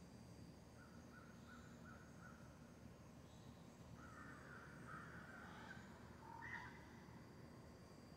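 Faint, distant bird calls over a quiet background: a quick run of short repeated notes about a second in, then longer, harsher calls from about four seconds in.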